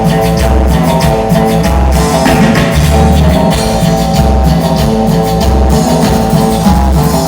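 Band playing an instrumental passage with no singing: sustained chords over a steady bass and drum beat, with a low bass pulse about once a second.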